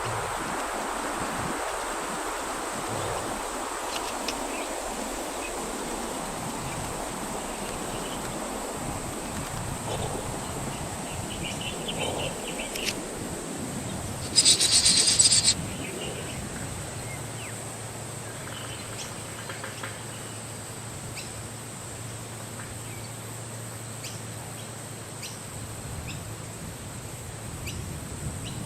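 Outdoor nature ambience: a steady high insect drone, with scattered faint bird chirps. Just past the middle comes one loud, rapid chattering bird call lasting about a second.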